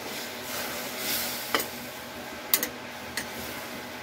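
Metal spatula stirring vegetables in a wok of boiling water, over a steady hiss from the water. The spatula knocks sharply against the metal pan about three times.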